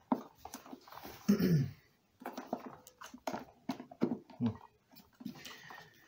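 Hard plastic clicks and knocks as a vacuum cleaner's plastic housing part is pressed and seated over its new motor in the chassis. A brief, falling, voice-like sound comes about a second in.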